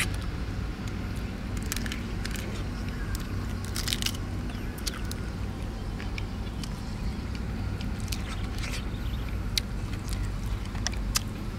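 Close-up eating sounds of a person biting, crunching and sucking on pieces of cooked crab shell and legs: irregular sharp crackles and crunches, several a second at times, over a steady low rumble.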